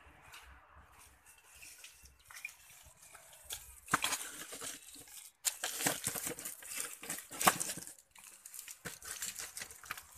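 Leaves and twigs rustling and crackling as plants are pushed through or handled. The crackling is sparse at first, then busiest and loudest from about four seconds in to about eight.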